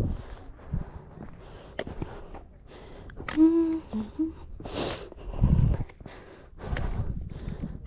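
A person breathing hard, a string of heavy puffing breaths, with a brief hummed vocal sound about halfway through.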